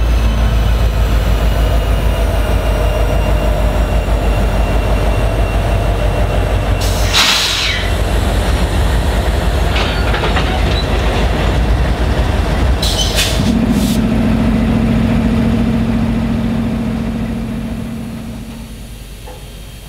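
Norfolk Southern diesel freight locomotives pass close by with a heavy engine rumble. A sharp metallic clank comes about seven seconds in, and a couple more come around thirteen seconds, as the trailing unit and the first covered hoppers roll past. A steady hum runs from about thirteen to seventeen seconds, and then the sound fades near the end.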